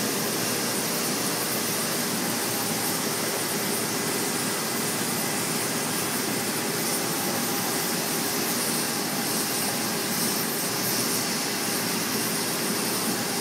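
Oxy-fuel cutting torch running steadily, the oxygen jet hissing as it burns through the steel plate.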